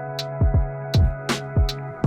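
Electronic background music with a steady beat: kick drums, crisp hi-hat strikes and held synth chords.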